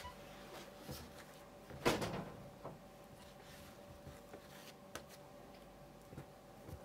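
Metal bench scraper pressed down through a ball of bread dough onto a silicone baking mat, with soft taps and handling sounds and one louder knock about two seconds in.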